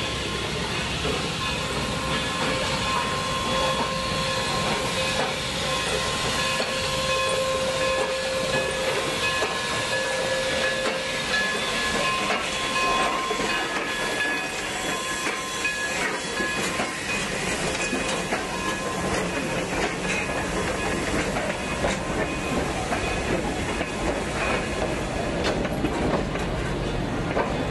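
Narrow-gauge steam train arriving: K-36 Mikado No. 482 hisses steam as it pulls in past, then its coaches roll by with a steady rumble and wheel noise. A thin steady ringing tone sits over the hiss for several seconds in the first half.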